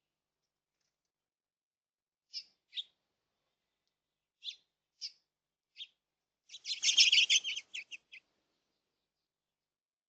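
Bird calling: five short, high chirps spaced apart, then about two-thirds of the way through a loud, rapid run of chirps lasting a second and a half.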